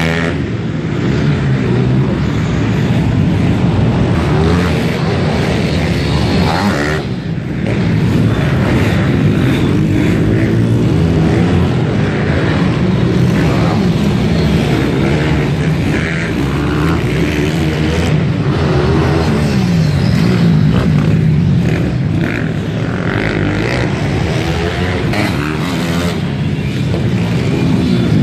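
Several small four-stroke pit bike engines racing around a dirt track, revving up and down in overlapping waves as riders accelerate out of turns and over jumps. The engines echo in a large indoor hall.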